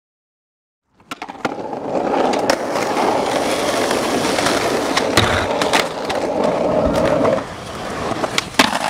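Skateboard wheels rolling on concrete, starting about a second in, with several sharp clacks of the board. The rolling quietens about six seconds in, then two sharp clacks come close together near the end.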